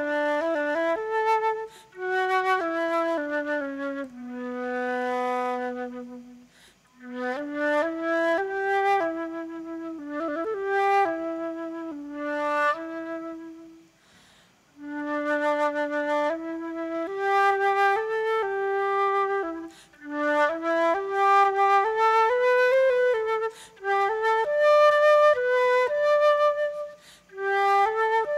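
Solo concert flute playing a melody, one note at a time, with a long held low note about five seconds in and two brief breaks in the phrasing.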